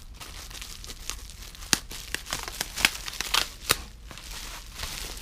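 Plastic bubble wrap crinkling and crackling as it is pulled open by hand, with several sharp snaps between about two and four seconds in.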